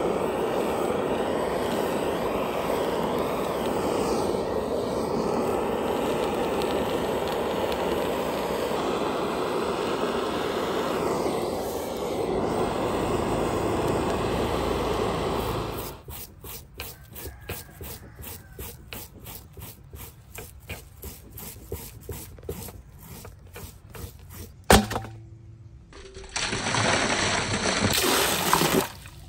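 Handheld butane blowtorch burning steadily as it singes a water snake's skin. The flame stops about halfway through and is followed by a series of short strokes, about three a second, and one sharp knock. Near the end comes water pouring from above into a metal basin.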